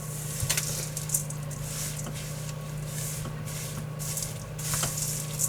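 Rolled oats coated in oil, honey and brown sugar being stirred in a mixing bowl: repeated soft swishing scrapes, with a few sharp clicks of the utensil against the bowl.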